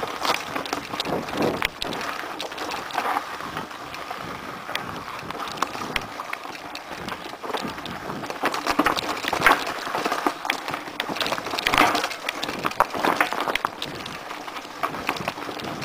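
Mountain bike riding fast down a loose, rocky trail: tyres crunching and skittering over stones, with many sharp clicks, knocks and rattles from the bike jolting over the rocks.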